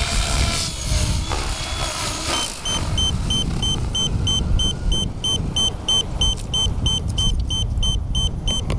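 A high electronic beeper starts about two and a half seconds in and repeats steadily, about two and a half beeps a second: an alarm sounding on a Gaui X7 electric RC helicopter that has come down after its battery plug came undone. Before the beeping, a couple of knocks sound over a steady low rumble.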